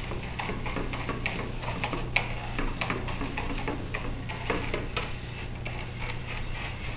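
Irregular light clicking and ticking from a small line-following robot as it drives along the track, over a low steady hum.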